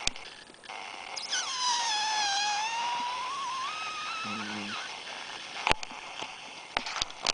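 Cavalier King Charles Spaniel giving one long high-pitched whine of about two and a half seconds that dips and then rises in pitch. A brief low grunt follows, then a sharp click about halfway through and a few more clicks near the end.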